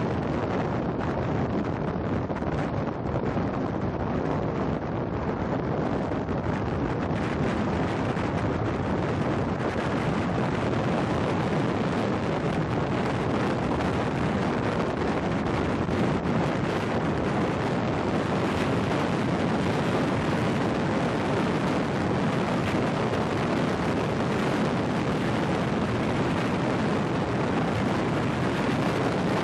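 Wind rushing over the microphone of a camera moving at downhill-longboarding speed, a steady roar that turns a little hissier after the first several seconds.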